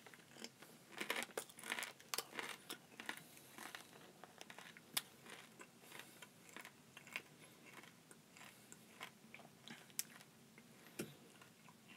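Faint, close crunching and chewing of a small packaged edible bug being eaten: dense, irregular crunches for the first few seconds, thinning out to sparser chewing clicks.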